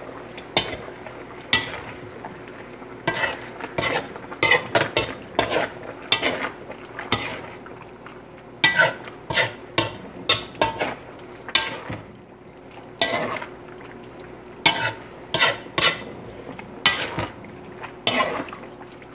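A cooking utensil scraping and knocking against a metal wok as a thick, saucy stew is stirred and tossed. The strokes come irregularly, one every half-second to a second.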